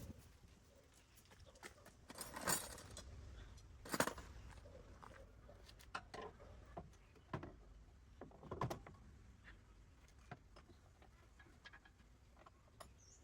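Scattered light knocks and clinks, with three louder ones about two and a half, four and eight and a half seconds in, over a faint low hum.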